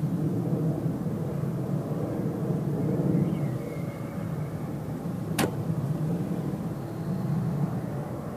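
Steady low rumble of outdoor background noise, with one sharp click about five seconds in.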